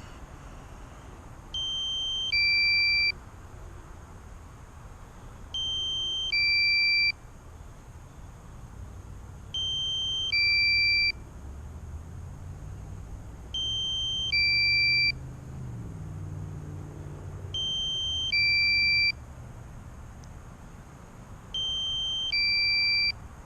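Drone controller's low-battery alarm: a two-tone electronic beep sounding six times, about every four seconds, warning that the aircraft battery is down near 25%. A faint low rumble swells and fades in the background around the middle.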